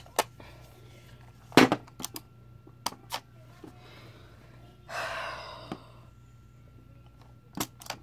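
Clicks and knocks of a Polaroid Snap instant camera's plastic parts being handled and pushed back into place, the loudest about one and a half seconds in, with a short hiss about five seconds in.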